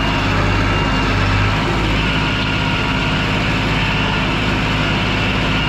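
Diesel engine of a New Holland farm machine running steadily as it handles round bales.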